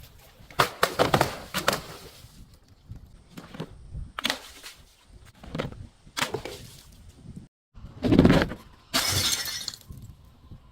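Glass bottles breaking and being crushed: a run of sharp cracks and crunching shatters, then a heavy thud about eight seconds in followed by a crunching hiss.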